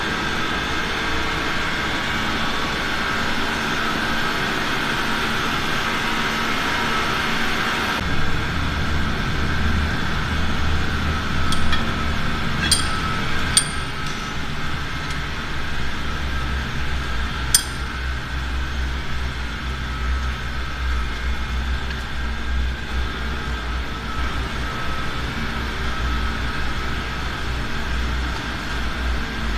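Steady drone of running core-drilling machinery. About 8 seconds in the low rumble abruptly gets heavier. Four sharp metallic clinks of steel rods and tools come between about 11 and 18 seconds in.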